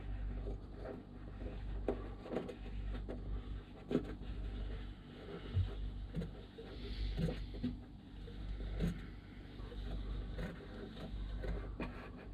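Small scattered clicks and knocks of a composite seacock being turned by hand onto a sealant-coated skin-fitting thread, over a low steady rumble.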